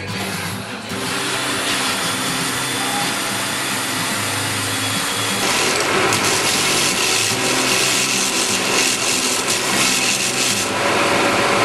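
Bench belt sander running and grinding the zinc coating off a bolt and its nuts held against the belt; the grinding grows louder about five and a half seconds in.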